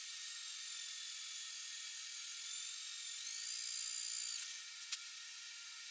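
Electric drill running a small twist bit into a steel plate, a steady high whine that rises in pitch and gets louder about three seconds in as the drill speeds up. The motor then cuts off abruptly, followed by a single click.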